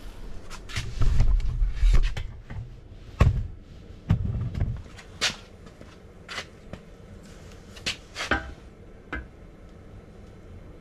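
Handling noise as the BMW N55's cast-metal bedplate is lifted and set down over the crankshaft onto the block: a few low thumps in the first half, then scattered sharp metal clicks and knocks that thin out toward the end.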